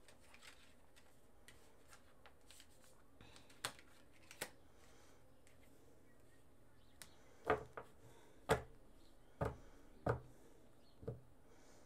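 Tarot cards and a card deck box being handled on a cloth-covered table: a scattering of short taps and knocks, two around the middle and several more in the second half.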